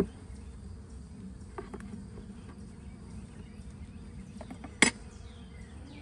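Steady low hum of many honeybees buzzing over an opened, freshly smoked hive. Two sharp knocks from the hive tool against the wooden frames cut through it, one at the start and a louder one about five seconds in.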